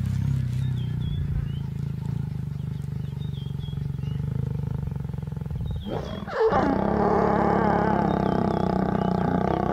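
Lions growling during mating: a low, rumbling growl for about the first six seconds, then a louder, higher snarl about six seconds in from the lioness under the mounting male.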